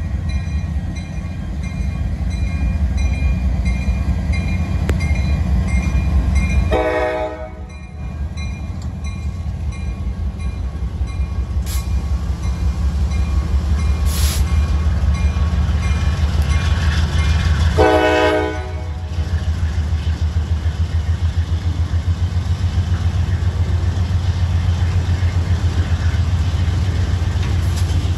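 CSX freight train with a GE CW40-9 and an EMD SD70AC diesel locomotive rumbling past, the engines' low throb over the rolling of the cars. The horn sounds briefly twice, about seven and eighteen seconds in.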